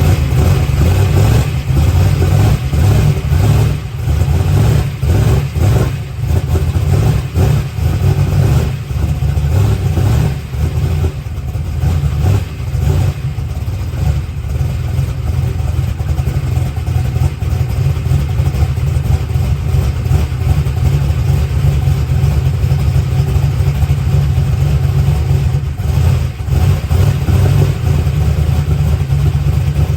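Boosted small-block Chevy V8 drag-race engine running at a cold idle, loud and steady, with some unevenness in the first dozen seconds.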